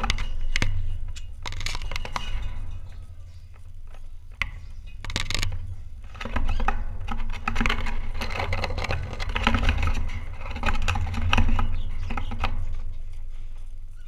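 Close, irregular taps, clicks and scraping from a budgerigar pecking and nibbling at the camera, its body rubbing against the microphone.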